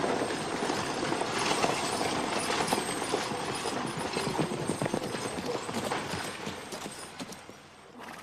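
Horse-drawn stagecoach arriving, the team's hooves clip-clopping rapidly over the rumble of the coach. It dies away near the end as the coach comes to a halt.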